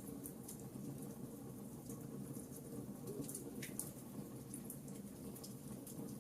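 Campfire burning, with irregular sharp crackles and pops of burning wood over a low, steady rush of flame. A cluster of louder pops comes about three and a half seconds in.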